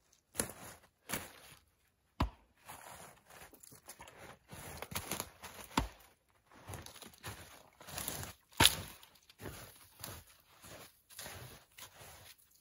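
Footsteps crunching through snow and piled dead branches, with brush rustling and twigs cracking in an uneven pace; one sharp crack about two-thirds through stands out as the loudest.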